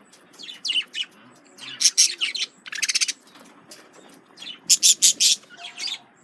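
Male budgerigars chirping and chattering in short bursts of high, buzzy calls, loudest about two, three and five seconds in.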